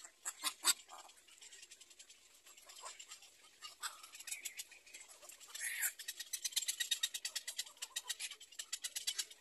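Black-crowned night heron chicks calling in the nest with short, high ticking notes: a few sharp clicks about half a second in, then a fast run of ticks, about ten a second, from about six seconds in.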